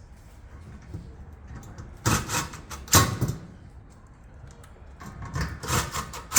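Knocks and clatter of metal gas-grill parts being handled and fitted together during assembly: two sharp knocks about two and three seconds in, then a run of smaller knocks near the end.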